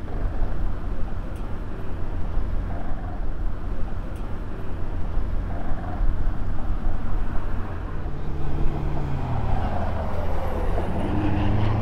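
Motor vehicle noise: a steady low engine rumble, and from about eight seconds in a vehicle passing by on the bridge overhead, its pitch falling as it goes by.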